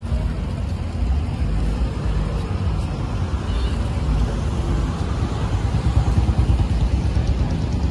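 Steady low rumble of road traffic and street noise, with no single clear event standing out.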